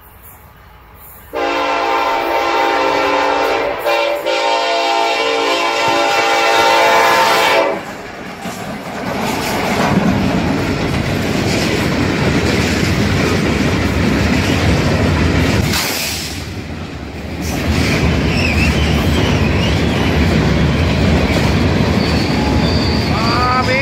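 Diesel freight locomotive's air horn sounding one long, steady chord for about six seconds as the train approaches, then the train passing close by: loaded freight cars rolling over the rails with wheel clatter.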